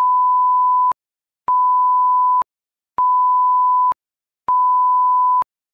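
Four electronic beeps at one steady pitch, each lasting about a second, evenly spaced about a second and a half apart, starting and stopping abruptly.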